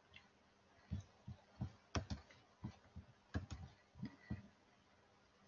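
Faint, irregular clicks and taps of a computer keyboard and mouse, about a dozen in a few seconds.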